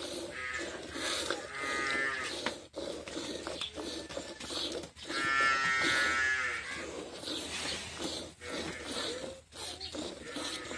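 A cow mooing twice: a short call about a second and a half in, then a longer one around five seconds in that falls in pitch at the end. Between the calls, milk squirts rhythmically into a steel pot as the cow is milked by hand.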